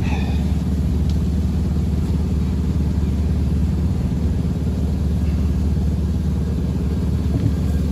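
A steady low engine hum running evenly throughout, with no change in pitch or speed.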